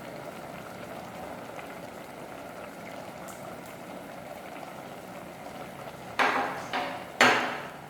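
Pot of pineapple, ginger and garlic with honey simmering on the stove, a steady bubbling hiss. Near the end come three loud clatters of cookware.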